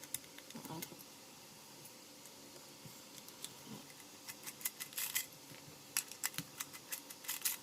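Light metallic clicks and clinks of small metal parts, such as the graphics card's brackets and screws, being handled. They are sparse at first and come thicker and faster in the last few seconds.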